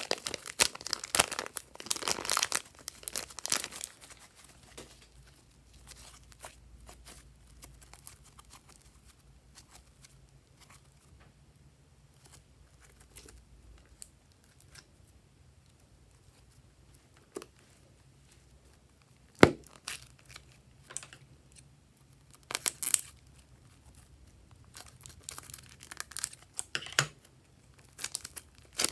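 Thin plastic piping bag crinkling and glossy slime crackling as the slime is squeezed out of the bag by hand, in dense bursts of small crackles at the start and again near the end with a quieter stretch between. A single sharp click comes about two-thirds of the way through.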